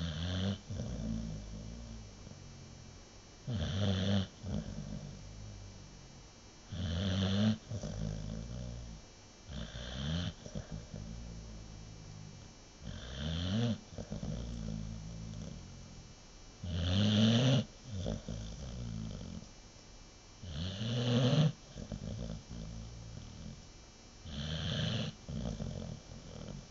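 American Bulldog snoring in a deep sleep: eight snores, about one every three and a half seconds, each a low rattle with a higher hiss on top.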